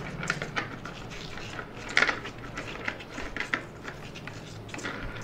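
Scattered light clicks and knocks of a polisher's backing pad being handled and fitted onto the spindle of a rotary polisher, the loudest knock about two seconds in.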